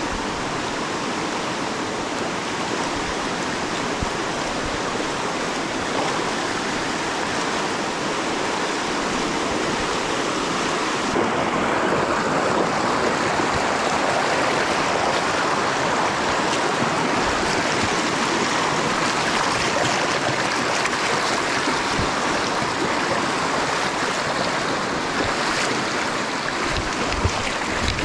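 Rushing river water: a steady wash of flowing water over rocks that grows a little louder after about ten seconds.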